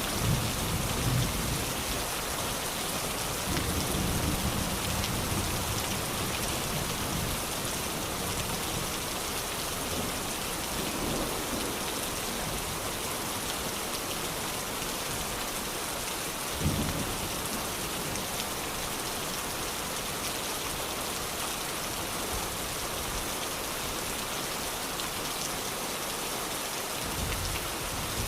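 Steady rain falling and pattering on surfaces, a dense even hiss. Low thunder rumbles through the first few seconds, and a single short low thud comes about 17 seconds in.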